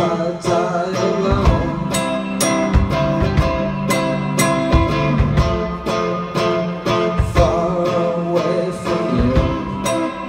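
Live band music: a Telecaster-style electric guitar and a drum kit playing a song at a steady beat, with a male voice singing over it.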